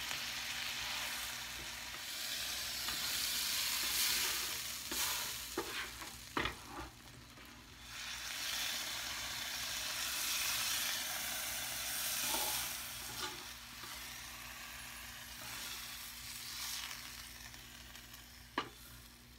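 Bacon bits and vinegar dressing sizzling on the griddle plate of a Power Smokeless Grill while a spatula scrapes and scoops them up, with a few clicks of the spatula on the plate. The grill is switched off, and the sizzle dies down near the end.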